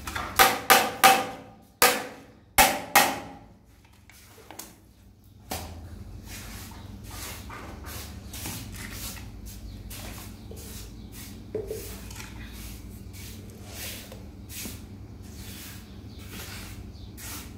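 A grey PVC drain-trap fitting struck with a hand tool: seven sharp knocks in two quick groups during the first three seconds, each ringing briefly like hollow plastic. After that, only quiet handling noise of the plastic parts.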